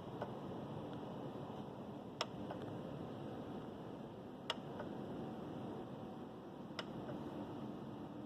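Regular clicking from the charge port area of a parked Tesla Model 3: three sharp clicks about 2.3 seconds apart, each followed by a fainter tick, over a steady low hiss.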